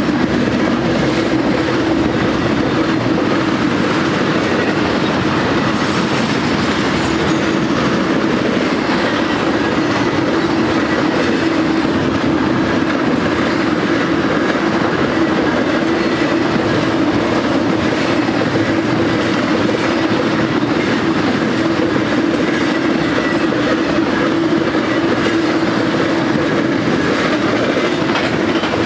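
Freight cars of a BNSF intermodal train, loaded with double-stacked containers and highway trailers, rolling steadily past: an even rumble of steel wheels on rail with a clickety-clack and a steady low hum.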